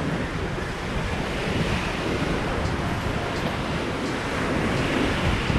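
Waves breaking and washing on the shore in a steady rush, with wind buffeting the microphone.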